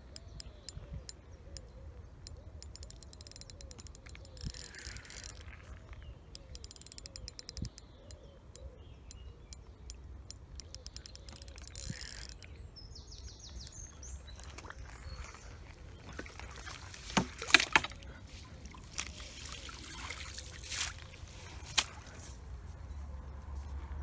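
Fishing reel ratcheting in rapid bursts of clicks as a hooked carp is played, with a few louder knocks in the second half.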